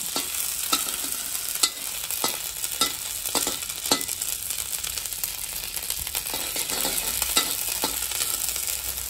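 Ginger-garlic paste frying in hot oil in a wok, a steady sizzle, while a metal spatula stirs and scrapes it, clicking against the wok again and again.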